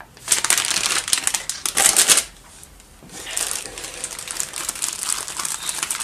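Plastic parts bags crinkling as they are handled, first a silvery anti-static bag, then a clear bag of parts. Loud crinkling for about the first two seconds, a brief lull, then softer, steady crinkling.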